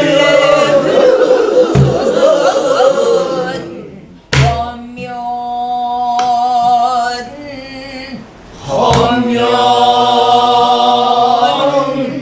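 Pansori singing with buk drum accompaniment. Several voices sing a long, wavering phrase together, a buk drum is struck a couple of times, and then one voice holds a long sung phrase before the voices come in again.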